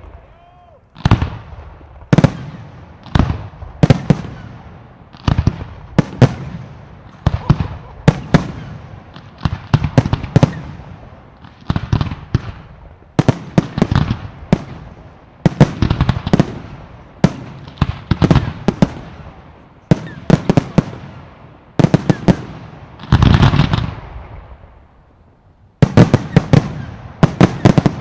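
Fireworks going off in steady succession: sharp bangs about once a second, often two close together, each trailing off into crackle. Near the end comes a longer, dense stretch of crackling, then a quick volley of bangs.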